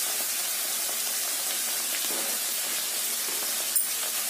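Ground masala paste sizzling steadily in hot oil in a kadai, with one short click near the end.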